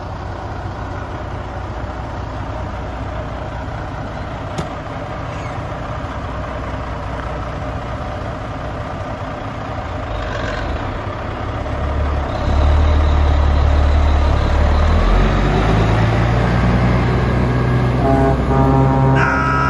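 Diesel engine of a semi-truck loaded with scrap steel, idling steadily, then revving up about twelve seconds in as the rig pulls away. The engine note climbs in pitch near the end as it moves off.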